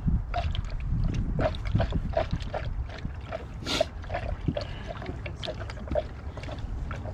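Orange Dexcool antifreeze glugging and gurgling down a funnel into a car radiator, in a string of short, uneven gurgles about three a second as air bubbles work up out of the nearly full radiator.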